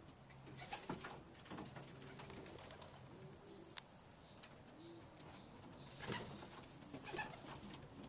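Young pigeons cooing softly over and over, with bursts of sharp clicks and rustling about a second in and again from about six seconds in, as beaks peck and tear at a hanging bunch of Swiss chard.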